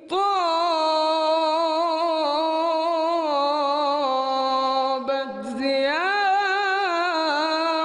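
A man sings an unaccompanied Arabic religious hymn in praise of the Prophet Muhammad, holding long, ornamented melismatic notes. There is a short break about five seconds in, and then a new phrase rises in pitch.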